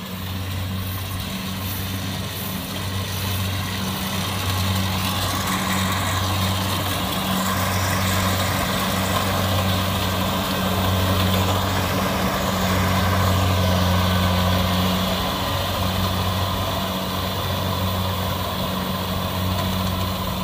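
Kubota rice combine harvester running as it cuts and threshes rice: a steady low engine drone with mechanical clatter over it.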